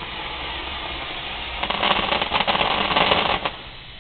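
Fireworks going off: a dense run of rapid crackling pops, starting about a second and a half in, lasting about two seconds and stopping suddenly.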